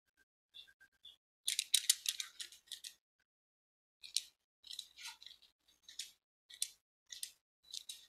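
Quiet, crisp rustling and crinkling of a sheet of paper handled close to a microphone: a few small crackles at first, a dense crinkling about a second and a half in, then short irregular crackles roughly twice a second.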